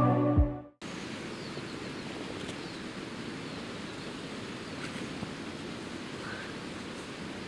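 Background music fades out within the first second, giving way to the steady rushing of a mountain stream, with a few faint high chirps.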